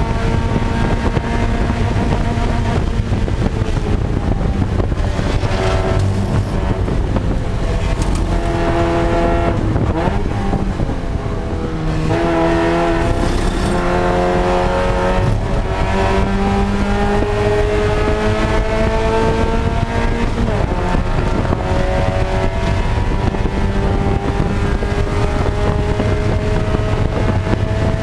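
Spec Miata's Mazda four-cylinder engine heard from inside the cockpit at racing pace. The pitch drops and steps down about ten to thirteen seconds in, as the car brakes and downshifts for a corner, then climbs in one long, steady pull under full throttle.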